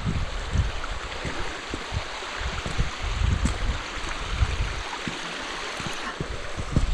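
A small moorland waterfall running, a steady rush of falling water, with irregular low thumps of wind buffeting or handling on the microphone.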